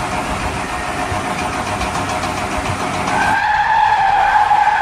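Car tyres rushing steadily, then a held tyre squeal from about three seconds in.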